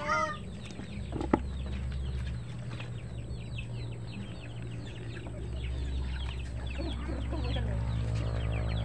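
Chickens: the tail of a rooster's crow right at the start, then clucking, with quick high-pitched chirps repeating several times a second throughout. A single sharp click comes about a second in.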